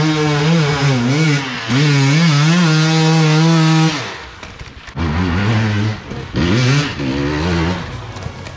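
Dirt bike engine revving hard under throttle on a steep climb, its pitch rising and falling as the throttle is worked for about four seconds, then two shorter bursts of throttle after a brief dip.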